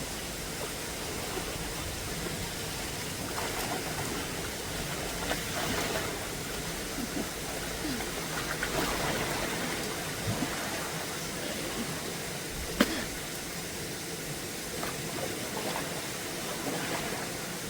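Steady hiss of rain falling, with one sharp tap about two-thirds of the way through.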